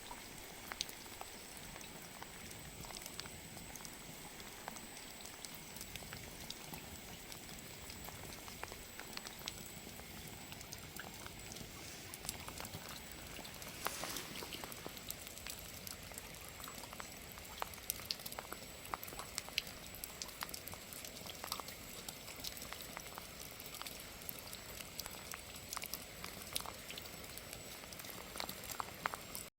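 Wood fire crackling: a steady hiss with scattered sharp pops, and a brief louder burst of crackling about 14 seconds in.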